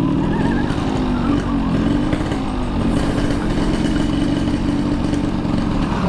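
Yamaha RX-King's two-stroke single-cylinder engine running at low, fairly even revs while the bike is ridden along a road, its pitch wavering only slightly.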